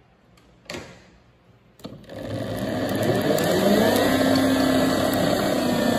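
Home-built electric-vehicle motor switched on and spinning up, with a couple of clicks just before it starts. Its whine rises for about two seconds and then holds steady over a broad mechanical running noise.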